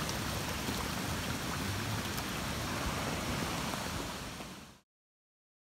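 Steady rushing hiss of rain and storm runoff water flowing across a flooded yard, with some low rumble. It fades out and cuts to silence near the end.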